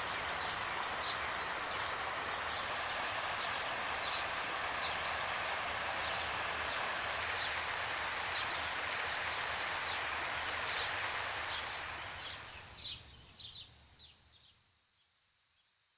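Steady rush of a small stream with a bird chirping, short high chirps about twice a second, all fading out near the end.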